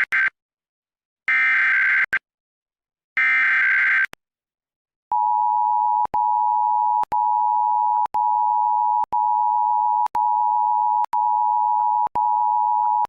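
Emergency Alert System test. The tail of one SAME header burst and two more of these screechy digital data bursts, each about a second long and two seconds apart. Then the EAS attention signal: a steady two-tone beep near 900 Hz, chopped into about eight one-second pulses by short dropouts.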